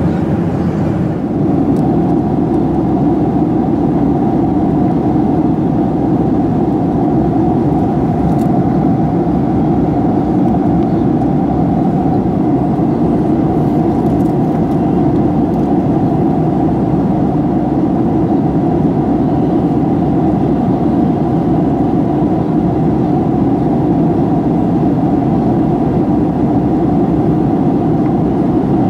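Steady rushing drone inside the cabin of a Boeing 737-800 in flight: airflow and engine noise heard from a window seat over the wing.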